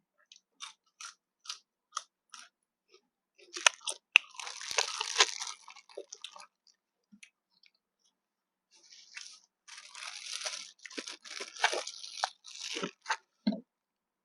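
A person chewing and biting crunchy food, close up: a few small mouth clicks at first, then two long spells of crunching.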